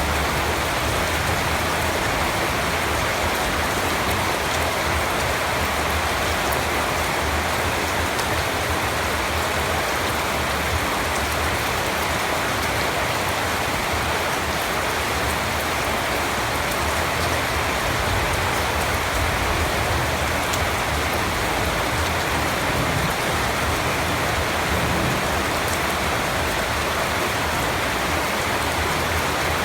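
Steady rain falling on a surface, an even hiss with scattered drop ticks that holds constant throughout.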